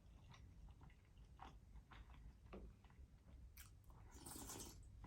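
Faint eating sounds close to the microphone: small wet mouth clicks and chewing, with a short noisier stretch about three and a half seconds in.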